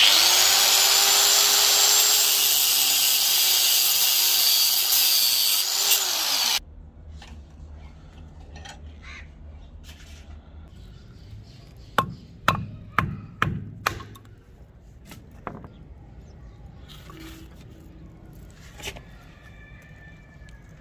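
Angle grinder with a thin cut-off disc running at a steady whine as it cuts through a steel nail clamped in a vise. It stops suddenly about six seconds in. Later comes a quick run of five or six sharp knocks.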